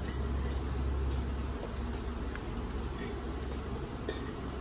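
Quiet eating at a table: a few light clicks and soft handling sounds as people eat pizza with their hands, over a steady low hum.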